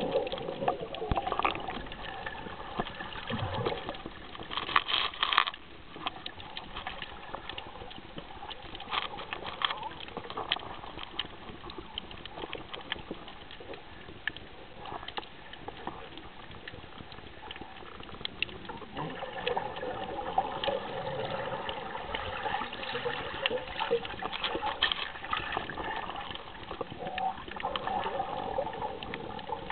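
Muffled sea water sloshing and bubbling around a snorkeler's camera, with scattered clicks and crackles throughout.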